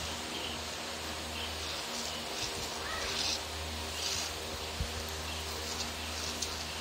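A goat being milked by hand: milk squirting from the teat into a plastic bowl in short hissing spurts, one squeeze at a time.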